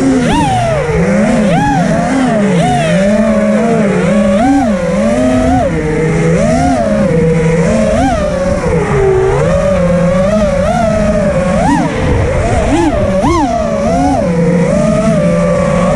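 Brushless motors and propellers of a 6S freestyle FPV quadcopter whining loudly, the pitch rising and falling sharply about once a second as the throttle is punched and backed off.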